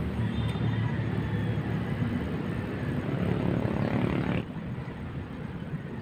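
Steady rumble of city traffic from nearby bridges, dropping off abruptly about four and a half seconds in.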